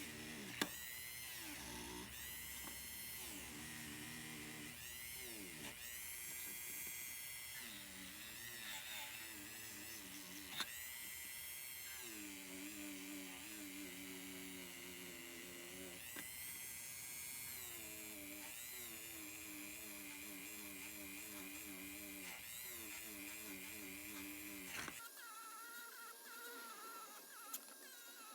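A small high-speed motor whining, its pitch dipping and recovering repeatedly as its load changes, with two sharp clicks along the way. About 25 seconds in, the sound changes abruptly and loses its low end.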